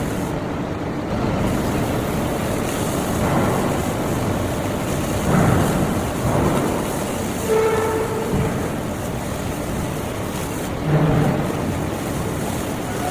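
Heavy forging machinery in a forge shop running with a steady, loud mechanical noise. It swells in several surges, and near 8 and 11 seconds in it gives out brief squealing tones.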